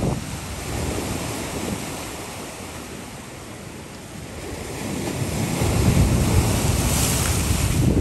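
Ocean surf washing onto a sandy beach, with wind buffeting the microphone. The buffeting grows louder over the last few seconds.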